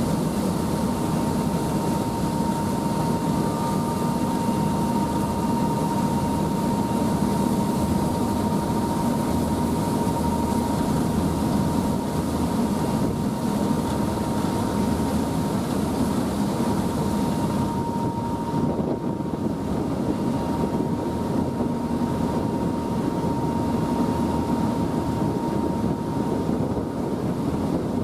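Passenger ferry's engines running steadily underway, heard on board, with a thin steady whine over the drone and a rush of wind and water. The wind hiss eases about two-thirds of the way through.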